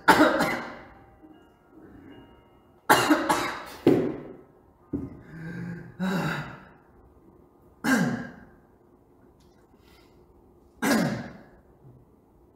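A man coughing repeatedly: short, sharp coughs, some in quick runs of two or three, with pauses of a second or more between them.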